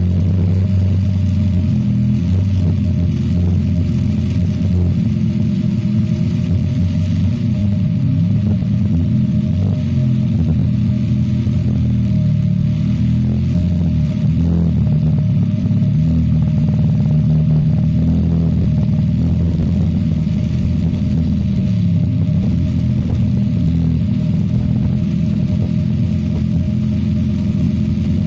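Chicago Electric corded hammer drill hammering steadily into solid rock, mixed with a portable generator's engine running continuously under the drill's load.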